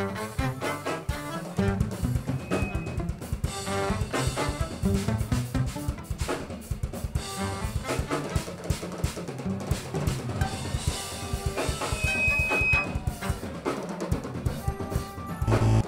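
Live band playing an instrumental groove, with a drum kit's snare and bass drum to the fore over the band's other instruments.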